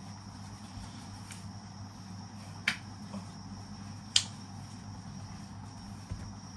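Two sharp clicks about a second and a half apart, the second the louder, and a weaker click near the end, over a steady low hum and a faint high whine.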